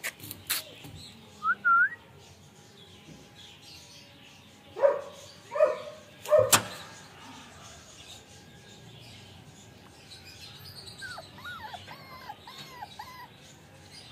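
Cocker spaniel puppy giving short, high whimpering cries: a brief rising squeak early, then three cries in quick succession about five to six and a half seconds in, among a few sharp clicks. Faint wavering chirps follow later.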